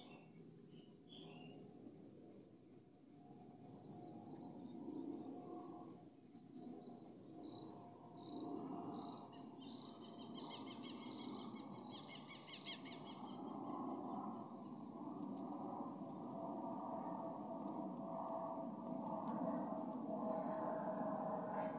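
Insects chirping steadily in a high, even rhythm of about two chirps a second, with a bird calling for a few seconds around the middle. Underneath, a low drone with a steady tone grows louder toward the end.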